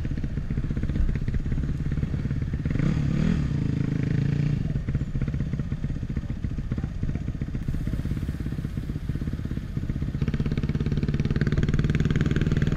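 Off-road dirt bike engine running while being ridden on a dirt track, the revs rising briefly about three seconds in and the engine getting louder near the end.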